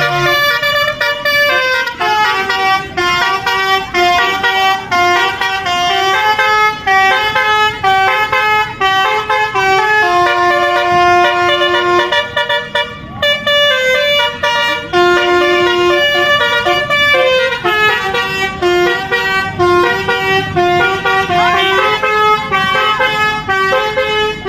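Telolet horn on a pickup truck playing a tune of quick stepped notes, several a second, with one brief break about thirteen seconds in.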